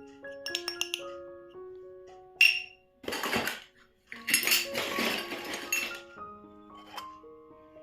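Gentle background melody of held notes, with light clinks and rattles of miniature toy kitchen pieces being handled; the sharpest clink comes about two and a half seconds in, and a longer stretch of rattling follows a little past the middle.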